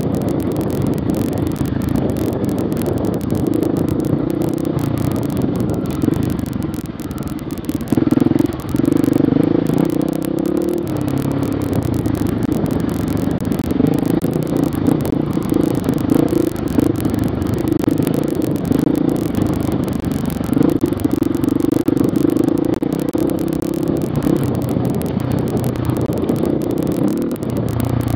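Enduro dirt bike's engine running as it is ridden, the throttle rising and falling, with the bike rattling over rough ground.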